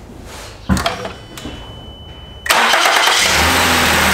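Ford Edge V6 started up: it fires suddenly about two and a half seconds in and settles into a steady idle, a test start after a new spark plug and ignition coil have been fitted to one cylinder. A single thump comes first, under a second in.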